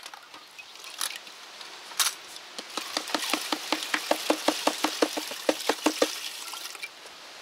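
A metal bucket of bitumen dissolving in petrol knocked quickly again and again, about six knocks a second for roughly three seconds, each with a short hollow ring, after two single knocks.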